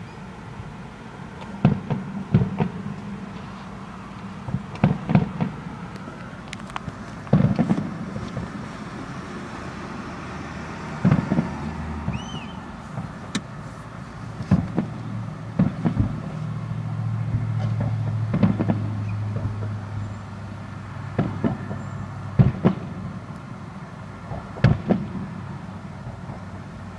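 Distant fireworks going off: sharp bangs at irregular intervals, a second or two apart, over a steady low hum that swells for a few seconds in the middle.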